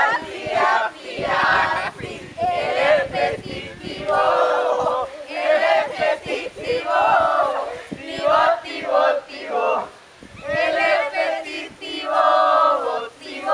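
A group of young people chanting a playful icebreaker song together in unison, in short phrases of about a second with brief breaks between them.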